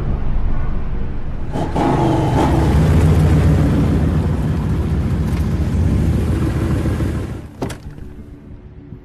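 Car engines rumbling in a film car-chase sound mix, with music underneath. A short sharp hit comes about seven and a half seconds in, and the sound then falls away to a quieter low hum.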